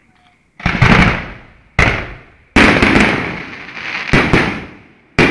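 Fireworks bursting: about seven loud sudden bangs in quick, uneven succession, starting about half a second in, each fading away over a moment before the next.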